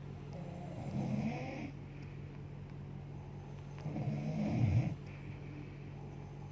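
A sleeping woman snoring: two rough snores about three and a half seconds apart, over a steady low hum.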